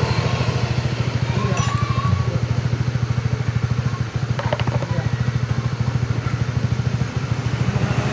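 Honda CB150R's single-cylinder engine idling steadily while it runs on injector-cleaning fluid fed from an external canister during an injector flush. A few light clicks come about four and a half seconds in.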